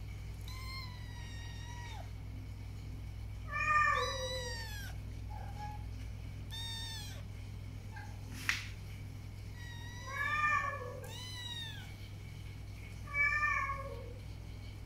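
Kittens mewing, about six separate high-pitched, drawn-out mews that drop in pitch at the end, the loudest about four seconds in and again near ten seconds. A brief sharp click falls about halfway through, over a steady low hum.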